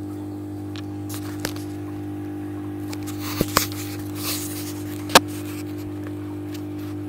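Steady low electrical hum of aquarium equipment, with a few sharp clicks and taps over it. The loudest click comes about five seconds in.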